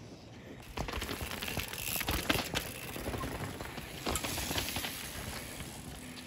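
A downhill mountain bike riding past on a loose dirt trail: knobby tyres crunching over dirt and stones, with clattering knocks from the bike. It builds about a second in, is loudest around two seconds, and fades toward the end.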